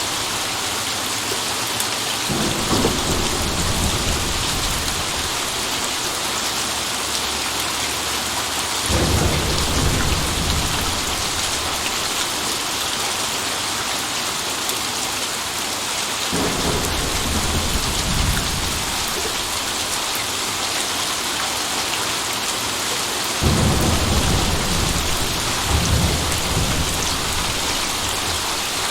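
Steady heavy rain hissing, with thunder rumbling four times, each roll lasting a few seconds, the last one near the end the strongest.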